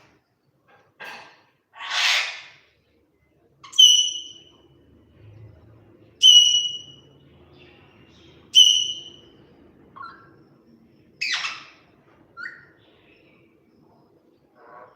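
Pet parrot calling: a run of short chirps and harsh screeches, with three loud, sharp whistled calls about two and a half seconds apart in the middle.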